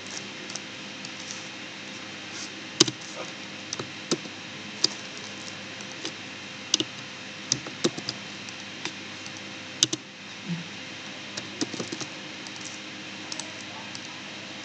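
Irregular computer keyboard keystrokes and mouse clicks, a dozen or more sharp clicks scattered unevenly, over a steady low hiss.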